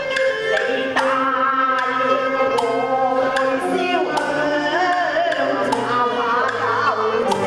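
Cantonese opera accompaniment: a traditional Chinese ensemble playing a melody, which wavers in pitch through the middle, over sharp percussion clacks that fall about once a second.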